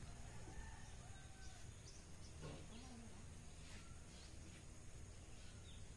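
Near silence: faint outdoor background with a few short, faint bird chirps.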